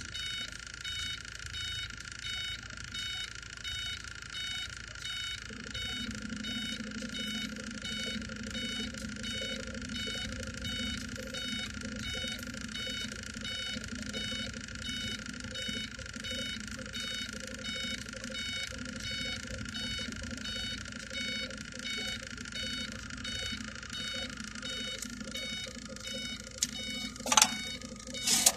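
Inside an idling Iveco truck cab: a fast, even ticking that repeats a few times a second over the engine's low hum, which grows stronger about five seconds in. A couple of sharp knocks come near the end.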